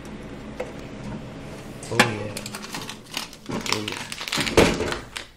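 Sharp knocks and clatters from a snack vending machine's push-flap delivery door as it is pushed open and the snack taken out, the loudest knock about two seconds in, over a low steady hum.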